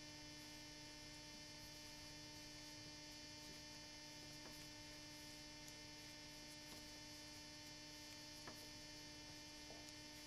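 Near silence with a steady electrical hum and a few faint ticks.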